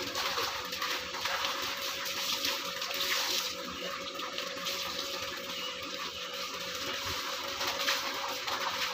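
Water running and splashing in a washing machine tub, steady throughout, with a faint steady hum underneath.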